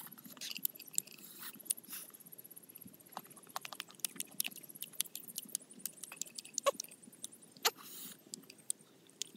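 Irregular wet lip smacks and tongue clicks from a mouth close to the microphone, a few of them louder, with short sliding smacks.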